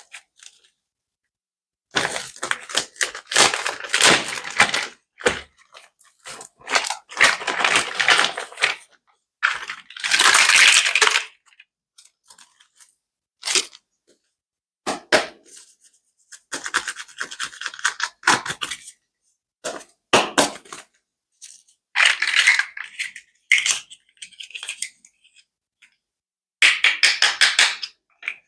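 Toys being clicked, tapped and scratched by hand in repeated bursts of rapid clicks and scraping. Each burst lasts from under a second to a few seconds, with short silences between them.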